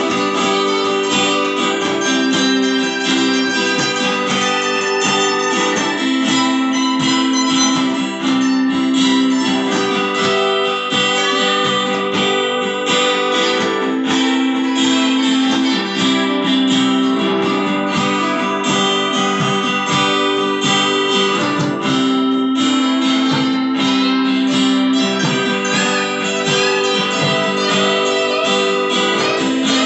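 Two guitars playing together: an acoustic guitar strummed and a second guitar picking notes over it, steady throughout.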